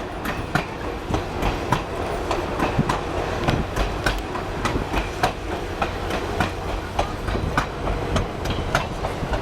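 Passenger train running on the track: steady low rumble from the rails, with wheels clicking over the rail joints about twice a second.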